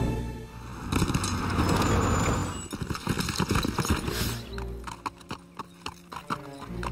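Horse hooves clopping unevenly over rocky ground, with background music underneath. Before the hoofbeats, a rushing noise lasts for about two seconds.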